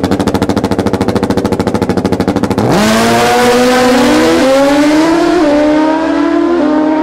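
Two drag-racing motorcycles held at the start line, their engines making a rapid machine-gun-like stutter typical of a launch limiter. About two and a half seconds in they launch: the engines run up in pitch and shift through the gears, about three shifts, as they pull away down the strip.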